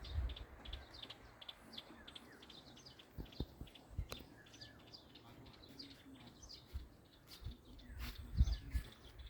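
Small birds chirping in quick, repeated short notes, with a few low thumps, the loudest about eight seconds in.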